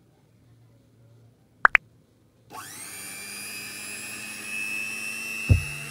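Pink Goto Lyra mini hand mixer: two sharp clicks, then its motor starts about two and a half seconds in, rising briefly in pitch before settling into a steady whine at low speed as the beaters stir dry flour in a steel bowl. A thump comes near the end.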